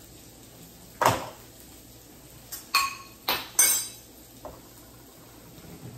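Dishes and utensils clinking as a small glass bowl is handled over the table: a handful of sharp clinks with a short ring, one about a second in and three close together around three seconds in.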